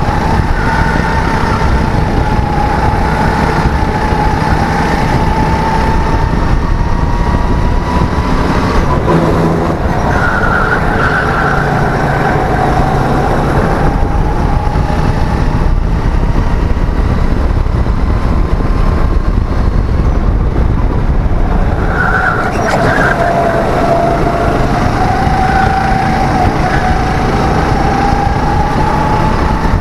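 Racing go-kart engine heard from on board under race load, its note rising and falling with the throttle and climbing steadily near the end, over a heavy rumble.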